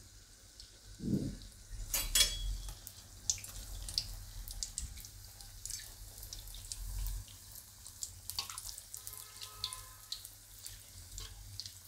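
Batter-coated yam slice frying in hot oil in a wok: a faint sizzle with scattered crackles and pops. A sharp tap about two seconds in.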